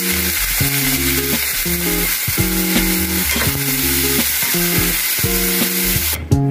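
Chili paste sizzling in hot oil in a wok as it is stir-fried with a metal spatula, over background music. The sizzle cuts off near the end, leaving only the music.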